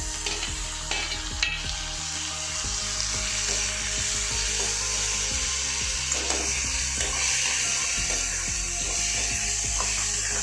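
Onions and tomatoes sizzling steadily in hot oil in a stone pot while being sautéed, with a few short clicks of the stirring spoon against the pot.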